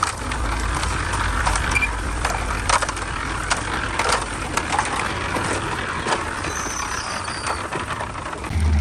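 Building-site work noise: irregular sharp knocks and clicks, as of hand tools and materials being handled, over a steady low rumble.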